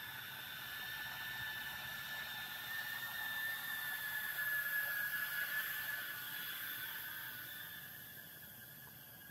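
A 3-inch cinewhoop quadcopter's motors and propellers whining in flight, growing louder to a peak about halfway through and then fading as it flies off.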